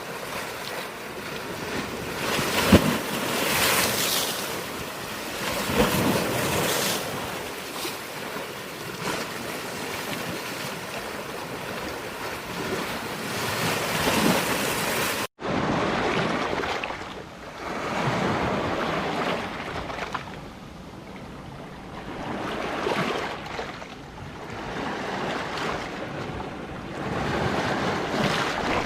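Sea waves surging and breaking on a rocky shore, rising and falling every few seconds. About halfway there is a momentary dropout, after which the surf sounds duller.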